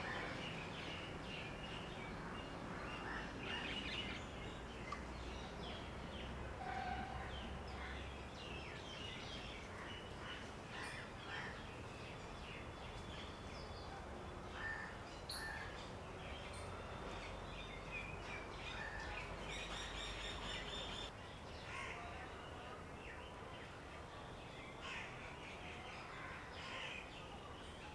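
Several birds chirping and calling, short scattered calls over a faint steady outdoor background.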